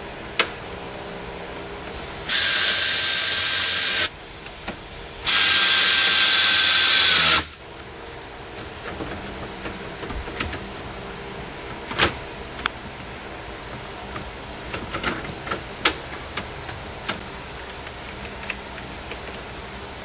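A power tool running in two bursts of about two seconds each: a loud hissing whine that winds down at the end of the second burst. It is followed by scattered light clicks and taps as the trim panels are fitted back on.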